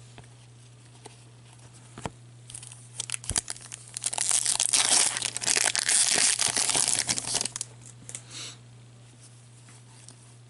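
A 2015-16 Upper Deck Series 2 hockey card pack being torn open, its wrapper crackling and crinkling. The tearing starts in short bits a few seconds in, turns loud and continuous for about four seconds, and stops near the end.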